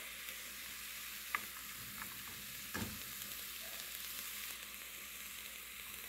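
Spinach and onion sizzling in olive oil in a frying pan, a steady hiss, with a few light knocks about a second, two seconds and nearly three seconds in.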